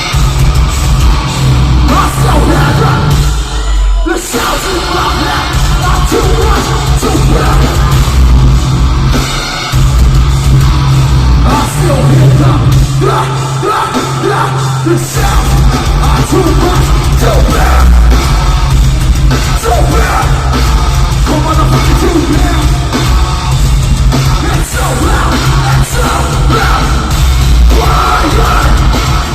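Live nu-metal band playing loud, with screamed vocals over distorted guitars, bass and drums. The music breaks off briefly about four seconds in, and the deepest bass drops out for a stretch in the middle before the full band comes back in.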